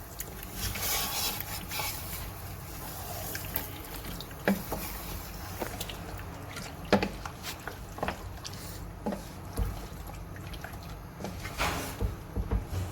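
Water running and splashing, as from a tap into a sink, strongest in the first couple of seconds. Several sharp knocks are scattered through it.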